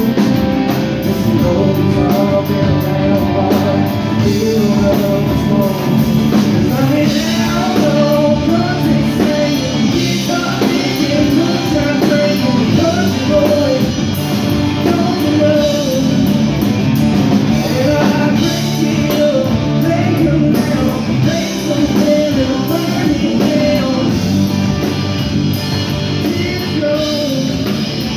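Live rock band playing a song: drum kit, electric guitars, bass guitar and acoustic guitar, with a lead vocal.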